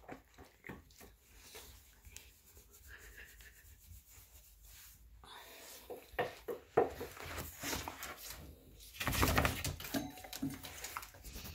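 Dog playing with a soft plush toy on a tiled floor: scattered clicks, scuffs and rustling, with a louder rough rustling burst about nine seconds in.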